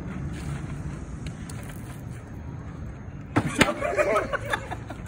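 Low, steady outdoor background noise with no clear event, likely town traffic and wind. A little past three seconds in, men's voices come in briefly with a sharp click.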